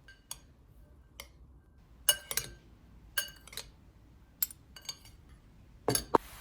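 A utensil clinking against a bowl while stirring grated cheese with chopped bell pepper and spices: about ten sharp, irregularly spaced clinks, several with a short ring.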